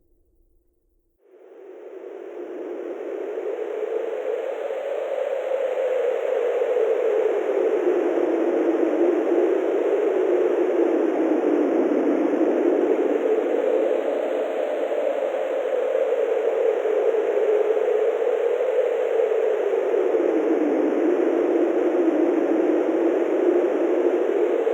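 Wind sound effect: a steady rush of wind that fades in from near silence about a second in, its pitch slowly rising and falling.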